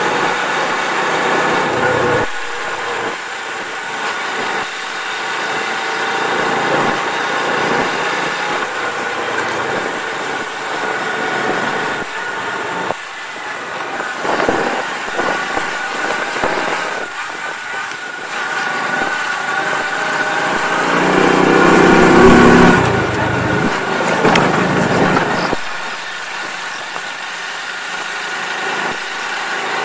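Alfa moped's single-cylinder four-stroke engine running under way on a dirt track, its note rising and falling with the throttle. About two-thirds of the way through it grows louder and deeper for a couple of seconds.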